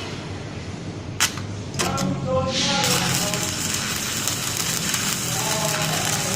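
Electric welding arc struck about two and a half seconds in and crackling steadily, after a few sharp clicks.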